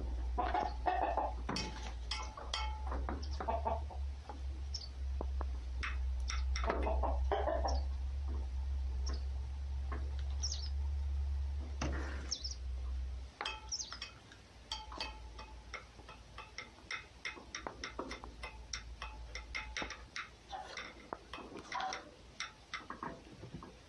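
Bursts of short clucking, chattering animal calls, some close together and clicky. Under the first half runs a steady low rumble that stops abruptly a little past halfway.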